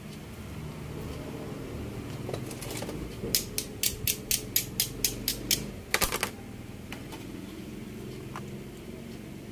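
A run of sharp, evenly spaced clicks, about four a second for a couple of seconds, then a quick cluster of three, over a steady low hum.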